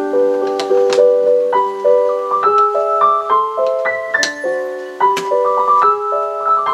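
Solo piano music: a melody of ringing notes over chords.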